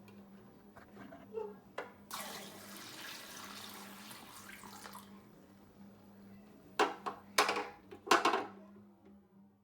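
A steady low mains-type hum throughout. From about two seconds in there is a rushing, water-like noise lasting about three seconds, and near the end come three loud knocks or clatters.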